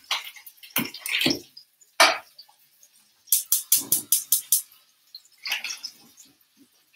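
Hands patting together in a quick run of about eight claps, knocking flour off after dredging the meat, amid a few scattered short knocks and rustles.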